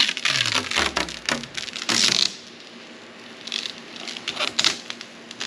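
Plastic protective film being handled and peeled, with crinkling, a run of sharp clicks and a hissing rustle about two seconds in.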